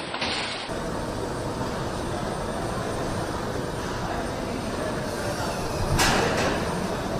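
Steady noise of a car factory floor, with a passenger car rolling past close by about six seconds in, its sound swelling briefly.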